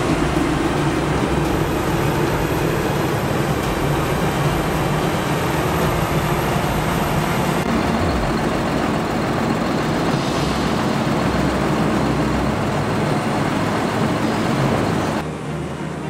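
Claas tractors' diesel engines running steadily while working a maize silage clamp. A little before halfway the sound switches abruptly to a single Claas tractor with a trailer close by, and near the end it drops to a lower, more distant engine din.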